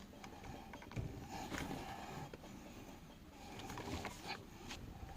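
Ratcheting torque wrench tightening steering-wheel hub adapter bolts: faint, scattered ratchet clicks in short runs.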